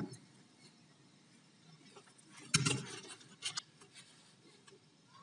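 Light handling noises from a circuit board and soldering iron being worked by hand. There is a short knock about two and a half seconds in and a few faint clicks about a second later.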